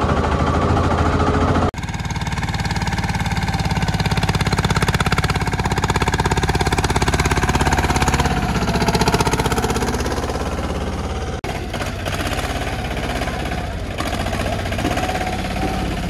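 Mini tractor engine running steadily with a fast, even knocking beat, cut off abruptly for an instant twice.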